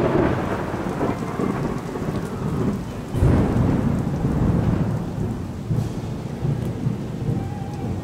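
Thunderstorm sound effect: a thunderclap at the start and another about three seconds in, over steady rain.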